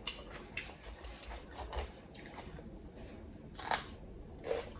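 Close-miked eating sounds of raw red pepper: scattered soft crunches and mouth clicks, with a louder crunch about three-quarters of the way through.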